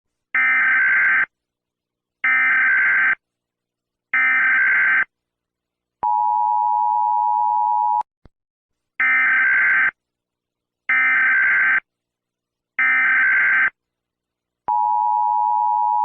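Emergency Alert System broadcast tones. There are three short, shrill data bursts about a second each, then a steady two-note attention tone for about two seconds. The whole pattern plays twice.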